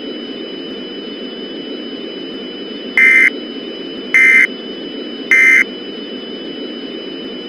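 Three short bursts of Emergency Alert System digital data tones, each about a third of a second long and about a second apart: the end-of-message signal that closes an EAS alert. They sit over a steady background hiss with a thin, steady high whine.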